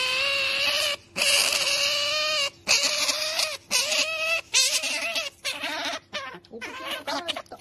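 Otter squealing close up: two long, whining calls of about a second each, then a string of shorter calls that waver in pitch, getting fainter near the end.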